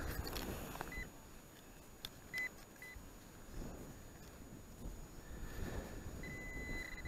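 Handheld metal-detecting pinpointer beeping as its probe is pushed through a pile of dug beach sand: one short beep about a second in, two short beeps around two and a half seconds, then longer, repeated beeps from about six seconds as it picks up a metal target close to the tip.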